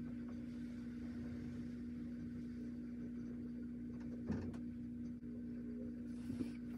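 A steady low mechanical hum, like a small appliance or motor running, with a faint click about four seconds in.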